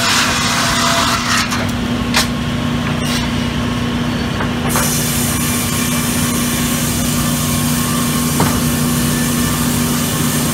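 Sawmill saw running with a steady motor hum while cutting teak logs. The high hiss of the cut thins out for a few seconds, from about a second and a half in to nearly five seconds, with a couple of short knocks.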